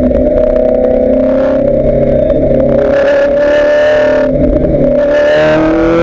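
Ferrari F430 GT race car's V8 engine heard from inside the cockpit, running steadily at part throttle through a slow corner. After a brief dip a little past four seconds in, the engine note rises in pitch as the car accelerates out of the turn.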